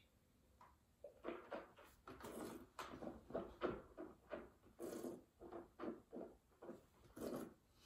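Faint mouth sounds of a taster working a sip of red wine around the mouth: short wet smacks and clicks of lips and tongue, a few each second, starting about a second in.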